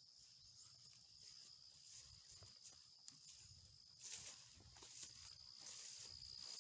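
Faint footsteps brushing through grass and leafy ground cover, getting louder about four seconds in. Behind them runs a steady, high, thin insect drone.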